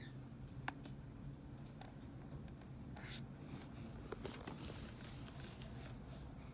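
Quiet room tone with a steady low hum, a few sharp light clicks and soft scratching rustles, like small handling noises.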